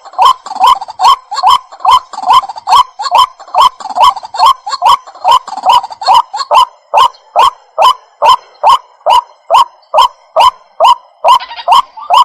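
Waterhen (jal murgi) calling: a long, even series of short, loud, croaking notes, about two and a half a second, without a break.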